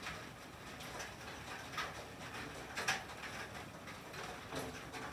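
Rain and sleet falling on a tin roof: a steady hiss of drops with irregular sharp ticks of pellets on the metal, the loudest about three seconds in.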